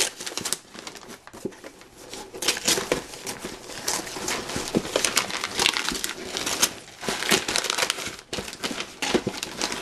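Clear plastic wrapping and tissue paper crinkling and rustling in irregular bursts as hands rummage through and unwrap items in a cardboard box.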